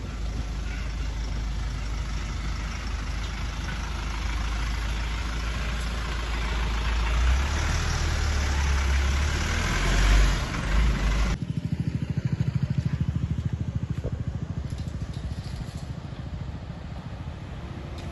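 Truck engine running as the truck moves off, with a loud rumbling noise that cuts off abruptly about eleven seconds in, leaving the engine's steady low pulsing.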